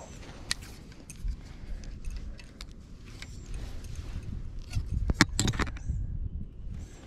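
Hands working a fishing rod and unhooking a small crappie: a scatter of sharp clicks and light metallic clinks, busiest and loudest about five seconds in, over a low rumble.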